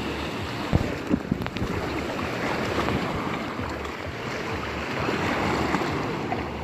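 Sea surf washing steadily onto the beach, with wind buffeting the microphone in a few low thumps about a second in.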